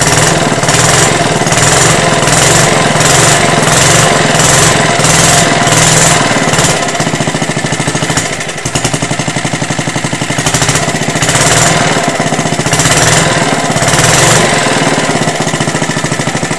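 Old Suffolk 75cc mower engine running loud, its speed surging up and down about twice a second at first, then in slower swells after a brief dip.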